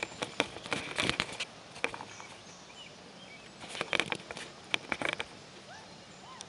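Handling noise from a handheld camera being adjusted and steadied: clusters of sharp clicks and knocks in the first second or so and again around four to five seconds in. Between them a quiet outdoor background holds a few faint, short rising animal chirps.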